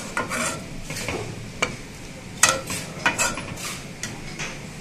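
Flat metal spatula scraping and knocking against an iron wok in an irregular series of strokes as it stirs a simmering pork and bamboo shoot curry, the loudest stroke about halfway through. A low sizzle of the gravy runs underneath.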